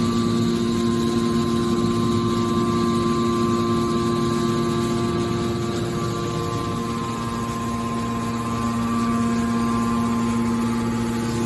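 Hydraulic metal baler running: its electric motor and hydraulic pump give a steady hum with a whine in it. The hum eases a little midway and then comes back.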